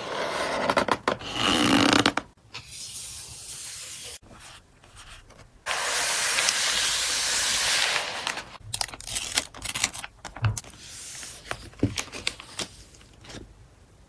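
Packing a parcel by hand: a cardboard mailer box is folded shut with scraping and rubbing, then a plastic poly mailer rustles steadily for a couple of seconds as the box goes into it. Crinkling, light clicks and a couple of soft thumps follow as the filled mailer is pressed flat.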